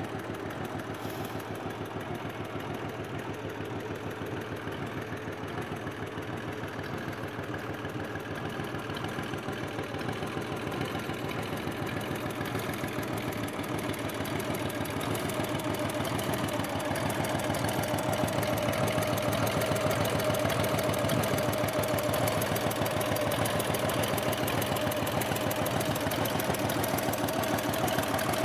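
Dnepr MT16 sidecar motorcycle's air-cooled flat-twin engine idling steadily with an even pulsing beat, growing louder about halfway through.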